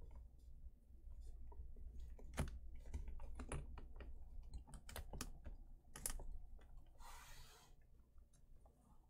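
Hard plastic statue parts knocking and clicking irregularly as a dragon tail piece is worked into its socket, with a short scraping rustle about seven seconds in.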